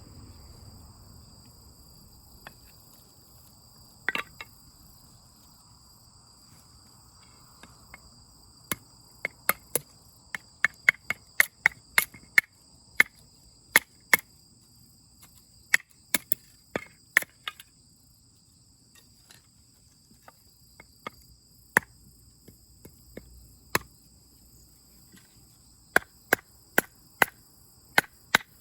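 Firewood being chopped or split at a campsite: irregular sharp knocks and cracks, sparse at first, then coming in quick runs from about a third of the way in. A steady high insect trill runs underneath.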